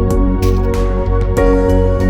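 Background music: held chords over a strong bass, with percussion hits.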